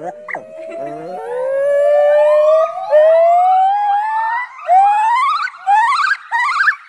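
White-cheeked gibbon calling: one long note that slowly climbs in pitch, then a run of short rising whoops, each a little higher than the last, about two a second.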